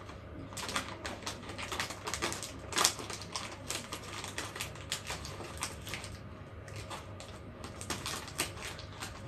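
Plastic chip bag crinkling and crackling in irregular bursts as it is handled and pulled open.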